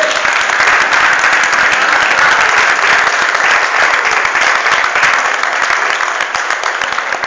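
Audience applauding: a dense, steady clapping that eases off slightly near the end.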